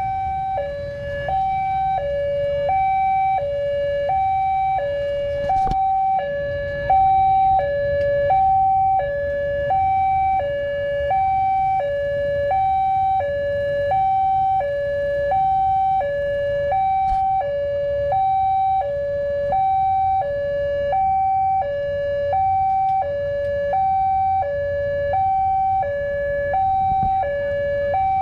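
Railway level-crossing warning bell sounding its electronic two-tone alarm, alternating evenly between a higher and a lower note about once a second. This is the signal that the barrier is down and the crossing is closed to road traffic. A low background rumble runs underneath.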